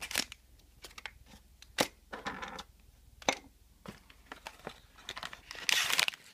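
Packaging being handled and unwrapped: paper and plastic wrapping rustling and crinkling, with scattered sharp taps and clicks from the box insert. The loudest crinkle comes near the end.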